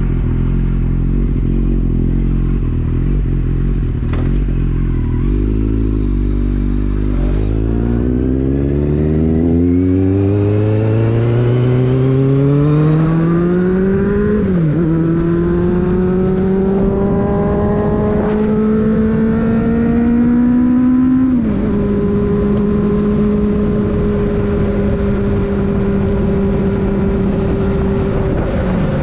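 Kawasaki Z750's inline-four engine running at low revs, then pulling up in pitch through the gears with two upshifts, the first about halfway through, and settling to a steady cruise near the end.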